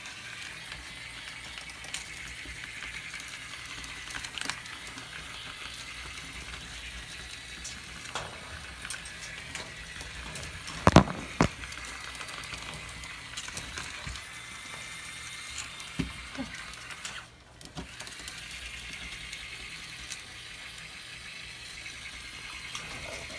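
Walking plush toy dog's small motor and gears running steadily as it walks, with two short sharp sounds close together about halfway through.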